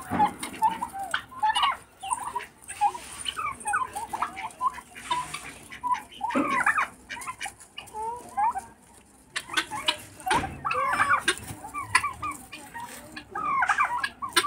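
Mixed flock of domestic turkeys, chickens and helmeted guineafowl calling: a run of short clucks and chirps from several birds at once, with a brief lull past the middle.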